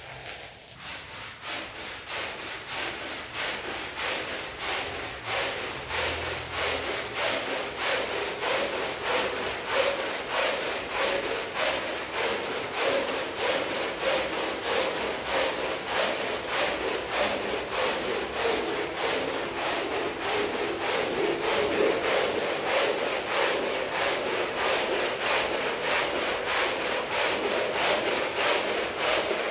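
Stiff brush scrubbing a rug in rapid back-and-forth strokes, about two to three a second, growing louder over the first few seconds and then keeping an even rhythm.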